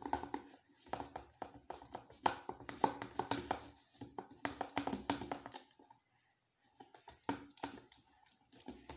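Wood glue and laundry detergent being stirred into slime in a container: a run of sticky squelches and scraping clicks, pausing for about a second a little past halfway.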